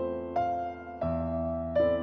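Background music: a slow, soft keyboard melody, with a new note struck about every 0.7 seconds and left to ring.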